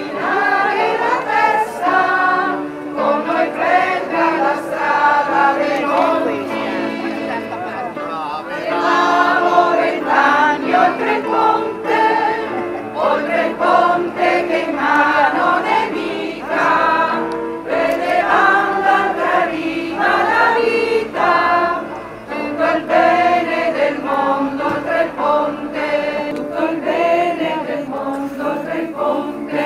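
A large crowd singing a song together in unison, accompanied by an electronic keyboard, in continuous sung phrases with short breaths between lines.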